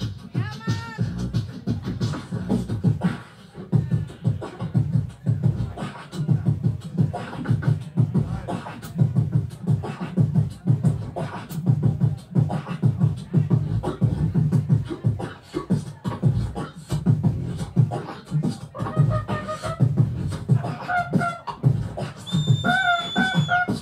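Live vocal beatboxing through a microphone and PA: a steady, fast beat of kick and snare sounds over a deep bass line. Pitched, gliding vocal tones come in over the beat near the end.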